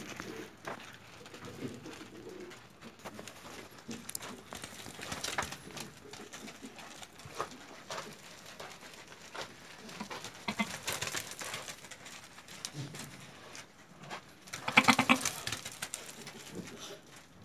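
Low animal calls in a goat pen, with one louder, longer call about fifteen seconds in, over scattered faint clicks and knocks.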